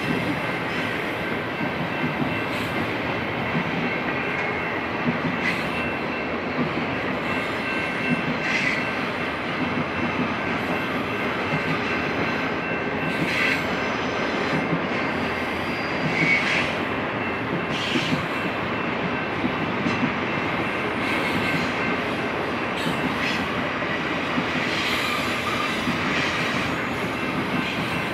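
Double-stack intermodal container train rolling past on a curve: a steady rumble of the cars, with a thin, high, steady wheel squeal and scattered sharp clicks from the wheels on the rails.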